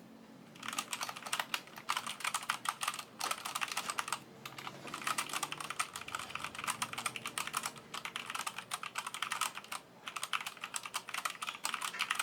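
Fast continuous typing on a Keychron K4 v2 mechanical keyboard with Gateron Brown switches: a dense run of key clacks, broken by a few short pauses.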